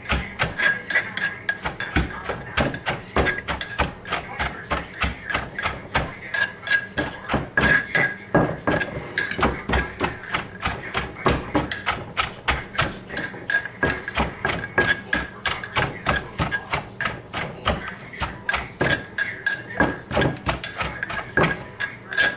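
Wooden pestle pounding green papaya salad in a mortar: a steady run of knocks, about three a second.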